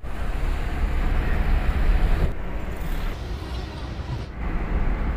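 Road noise inside a moving car at highway speed: a steady low rumble of tyres and engine with a hiss of wind, the hiss thinning about two seconds in.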